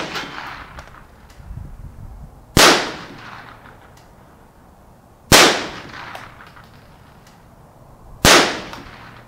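Three shots from a Marlin Model 60 semi-automatic .22 LR rifle with a 21-inch barrel, firing CCI Blazer rounds, about three seconds apart. Each is a sharp crack that trails off over about half a second.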